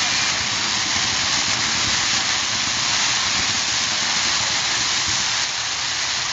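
Steady loud hiss of fireworks burning, easing off slightly near the end.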